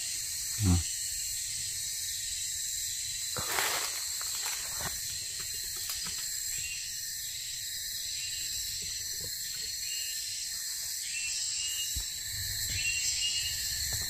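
Steady high-pitched drone of a tropical forest insect chorus, with faint repeated short chirps joining from about halfway through. A brief rustle about three and a half seconds in.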